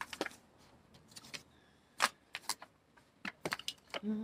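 Faint, scattered light clicks and taps of tarot cards being handled and laid out.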